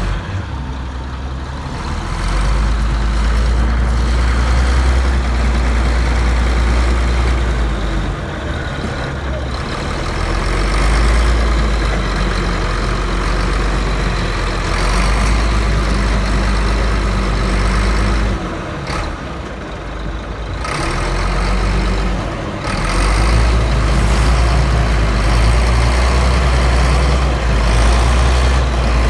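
Bulldozer's diesel engine running close by, a heavy low rumble that eases off briefly twice and builds again as the machine works.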